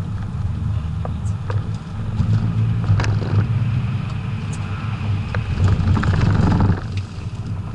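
Inside the cabin of a BMW 535d, its twin-turbo diesel straight-six pulling hard over tyre and road noise. The sound grows louder about two seconds in and drops suddenly near the end as the throttle is lifted.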